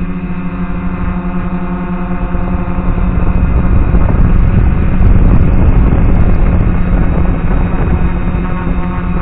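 DJI F450 quadcopter's motors and propellers whining at a steady pitch, mixed with a rush of air noise that swells louder for a few seconds midway.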